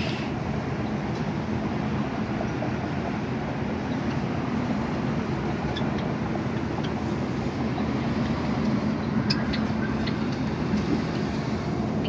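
Steady background rumble and hiss with a faint low hum, and a few short, faint high chirps from Java sparrows in the second half.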